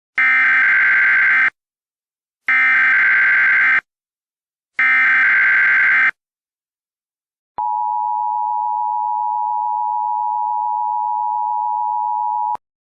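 Emergency Alert System header tones: three short bursts of buzzy digital data tones about a second apart, then the steady two-tone attention signal for about five seconds, which cuts off suddenly. This is the signal that opens an emergency alert broadcast.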